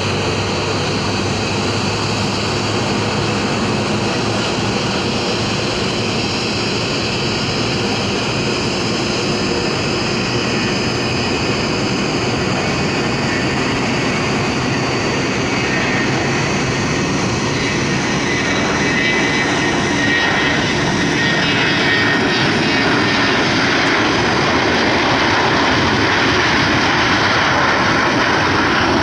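McDonnell Douglas MD-82 airliner's two rear-mounted Pratt & Whitney JT8D turbofans at takeoff power, a loud steady jet noise with whining tones over it. It grows somewhat louder about two-thirds of the way in, and the whining tones shift in pitch.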